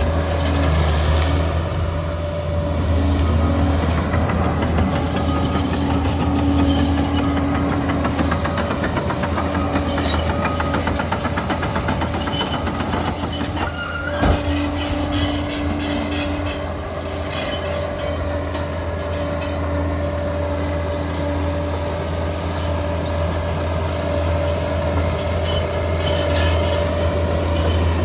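Liebherr PR 746 crawler bulldozer's diesel engine running steadily under working load, a deep drone with a steady whine over it, and one sharp metallic clank about halfway through.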